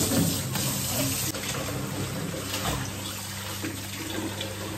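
Kitchen tap running steadily into a stainless-steel sink as hands rinse meat under the stream, with a few light knocks and a low steady hum underneath.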